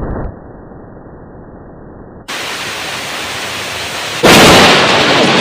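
Thunderstorm sound effect, heavily edited. A muffled rumble drops away, then a hiss of rain cuts in abruptly about two seconds in. A loud crash of thunder breaks in near the end and keeps going.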